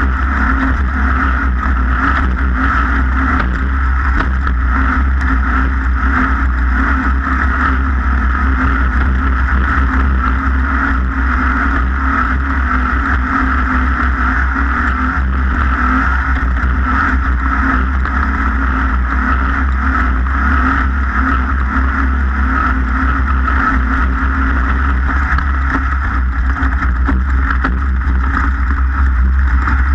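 An engine running steadily at speed under a heavy low rumble, without letting up.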